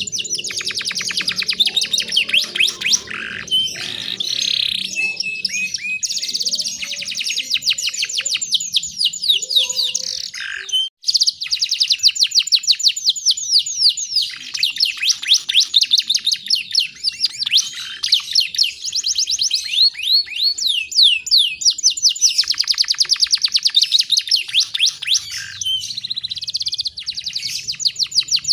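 Canary singing continuously in long runs of rapid trills and fast, high-pitched chirps that sweep up and down. The song breaks off briefly about eleven seconds in, then resumes.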